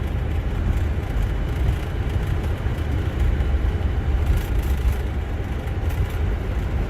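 Boeing 747 rolling out on the runway just after touchdown: a steady low rumble of engines and wheels.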